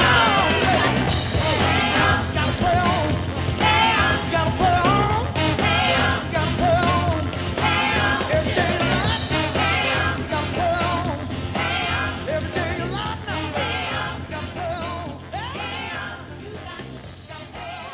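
Blues-rock band recording playing, with a steady bass and drums under a wavering lead line, fading out over the last several seconds.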